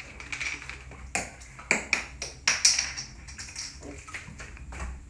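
A man pausing to drink: about half a dozen short sharp clicks and taps, spread through the stretch, over a low background.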